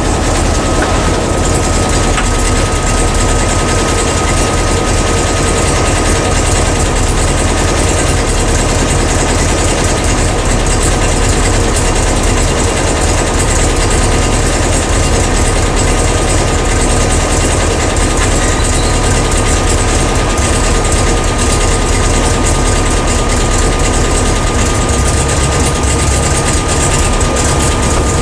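A Porsche 912's air-cooled flat-four engine runs steadily, heard from inside the cabin as a low drone with a faint steady high whine above it.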